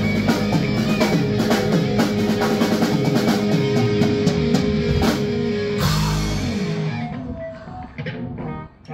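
Live rock band of electric guitars, bass guitar and drum kit playing loudly, ending the song on a final big hit about six seconds in; the chord then rings out with a few stray notes and taps as it fades away.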